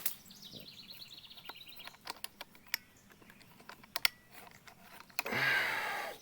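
Scattered light clicks and knocks from a pole saw jammed in a tree branch as it is worked, with a louder rush of noise lasting under a second near the end.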